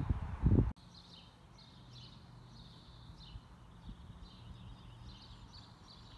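Wind buffeting the microphone with a low rumble, cut off abruptly under a second in; after that, faint birds chirping in many short calls over a low steady hum.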